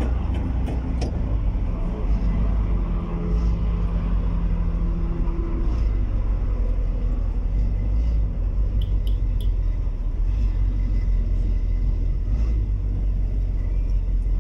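Car engine running with road rumble, heard from inside the cabin as the car rolls slowly along a street. There is a steady low drone with a pitched engine note that fades after about five seconds, and a few light clicks near the start and again around nine seconds in.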